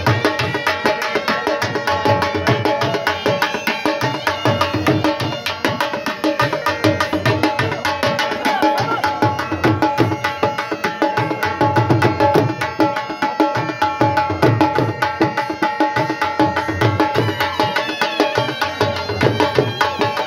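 Dhol drum beating a steady jhumar dance rhythm, with a been reed pipe playing a continuous melody over it.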